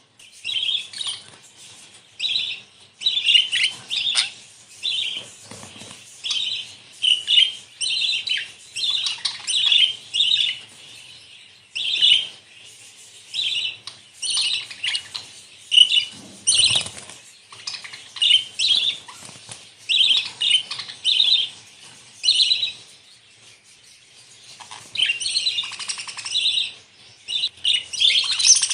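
Several budgerigars chattering and warbling, a stream of short high chirps that come in bursts with brief pauses, and a low rustle about sixteen seconds in.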